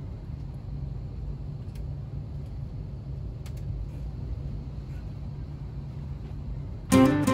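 Steady low hum and air rush of an Airbus A320neo's cabin ventilation while parked before pushback, engines not yet running. Near the end a much louder pitched sound with several tones cuts in suddenly.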